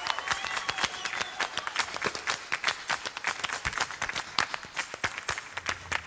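Concert audience applauding: many separate, irregular hand claps.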